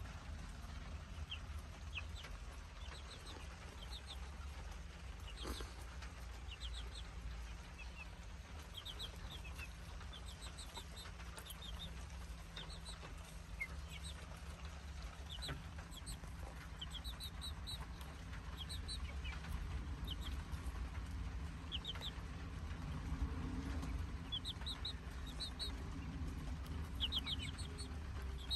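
Young chicks peeping while they peck at an ear of corn: short high cheeps, often in quick runs of two to four, scattered throughout.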